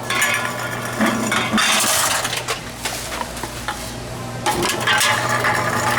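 Tomra T-X2 reverse vending machine taking in empty containers: irregular clinking and clattering over a steady machine hum.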